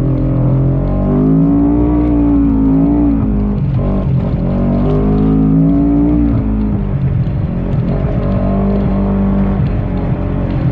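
Segway Villain side-by-side's engine running hard, revving up and easing off twice, then holding a steadier pitch.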